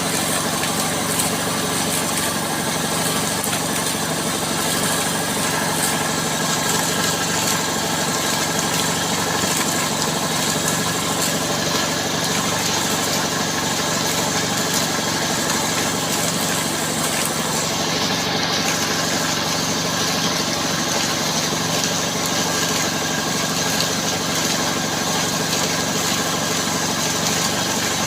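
Air compressor engine running steadily under a constant rushing hiss while a well is flushed out with compressed air.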